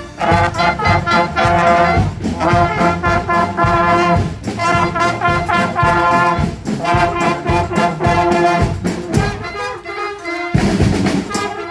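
Street band of brass horns and drums playing a tune together, the horns sounding sustained notes over a steady drum beat.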